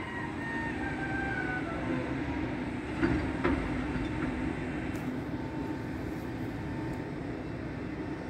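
Mack LEU garbage truck with a Heil Curotto-Can loader running: a steady diesel rumble under a high whine that steps down in pitch over the first two seconds and then holds. Two sharp knocks come about three seconds in.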